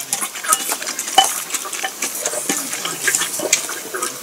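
Close-up chewing of a piece of simmered lotus root: a run of many small crisp clicks and wet mouth noises.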